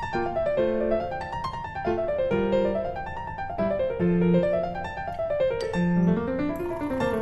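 Background piano music: runs of notes climbing and falling in repeated waves.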